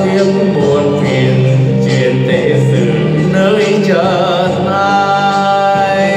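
A man singing a Vietnamese song into a handheld microphone over backing music. A note wavers with vibrato about four seconds in, then he holds long, steady notes near the end.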